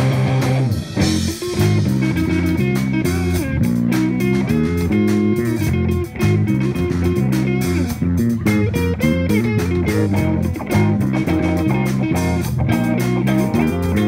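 Live rock band playing an instrumental funk-rock groove: two electric guitars over a moving bass guitar line and a drum kit.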